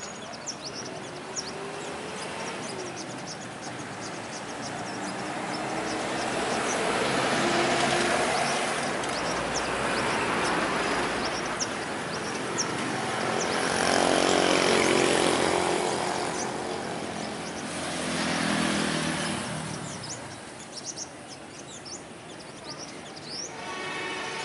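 Vehicles passing on a nearby road, their noise swelling and fading several times and loudest about midway, with sunbirds chirping in short high notes throughout.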